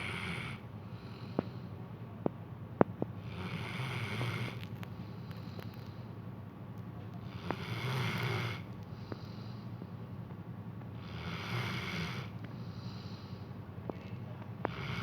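Dog snoring in its sleep, one long noisy breath about every four seconds. A few sharp clicks fall in the first three seconds, and one comes near the end.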